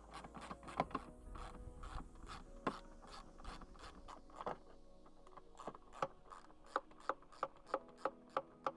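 Ratchet wrench with a 10 mm socket working small bolts loose: irregular metallic clicks and scraping, then a run of evenly spaced clicks, about three a second, near the end.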